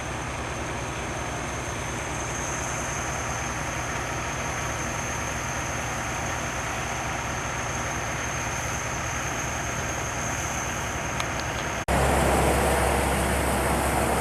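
Tractor engine running steadily while it drives a grain auger loading wheat into a truck, with a thin steady high whine over it. About twelve seconds in, the sound cuts abruptly to a louder, deeper steady engine sound.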